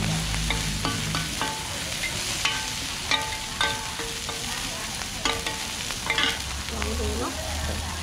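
Mussels and batter sizzling in oil on a large flat steel pan, while metal spatulas scrape and clank against the pan again and again, each strike ringing briefly.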